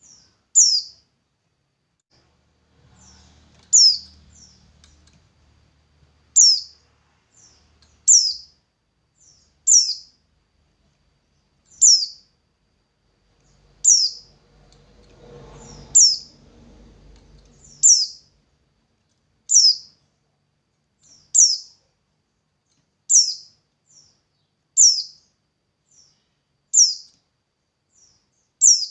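A small bird calling: a short, high chirp that slides downward, repeated regularly about every two seconds, with fainter, shorter chirps in between.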